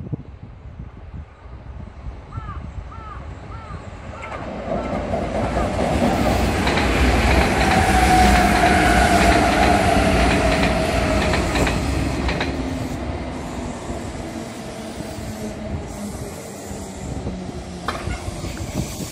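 Kintetsu electric train passing close by: wheels clattering on the rails under a falling motor whine, the sound building to a loud peak about halfway through and then fading. A short run of five chirps sounds a few seconds in.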